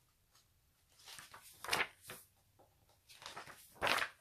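Pages of a hardcover picture book being turned and handled: two bursts of paper rustling, one about a second in and a louder one near the end.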